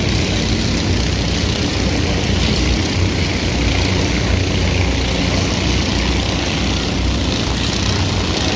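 Stock kart engines running steadily as a pack of karts races, a continuous engine drone with no single pass standing out.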